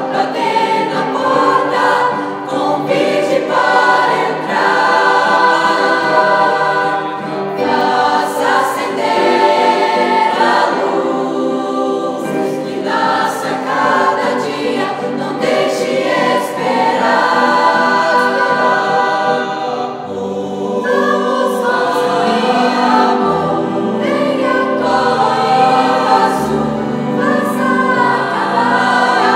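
Mixed choir of teenage boys and girls singing together in several voices, with deeper low notes joining about twenty seconds in.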